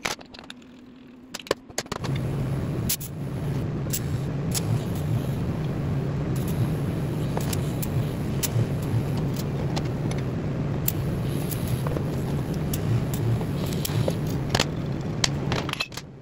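A steady low hum from welding equipment sets in about two seconds in, with scattered sharp metallic clicks and clinks of steel parts being handled and fitted.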